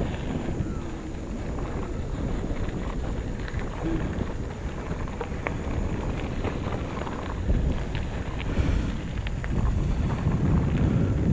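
Wind noise on a bicycle-mounted camera's microphone as the bike rolls along a rough dirt track, with scattered small clicks and rattles from the tyres and frame over bumps.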